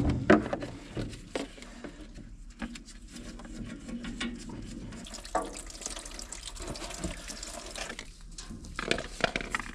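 Fuel trickling and dripping from the opened drain bolt of an engine's sediment bowl into a plastic funnel, with a few light clicks and knocks from handling.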